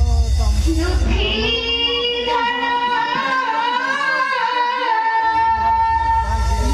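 A song: a high voice sings a wavering, ornamented line, ending on a long held note, over a deep steady bass that drops out for about two seconds in the middle.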